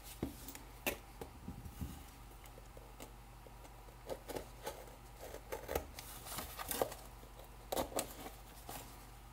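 A small cardboard box being handled and its packing tape cut open with a small blade: faint, scattered scrapes, rustles and light taps.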